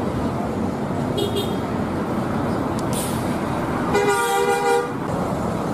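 Intercity coach buses passing on a road with steady engine and traffic noise; a bus horn gives a brief faint toot about a second in, then sounds loudly for just under a second about four seconds in.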